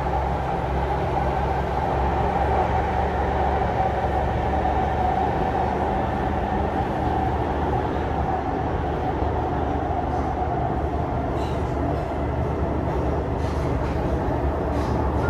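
Steady rumble and drone of a Singapore MRT train running, heard from inside the carriage.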